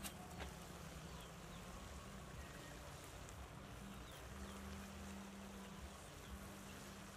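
Faint steady sizzle and simmer of leafy greens cooking in their juices in a wok over a wood fire.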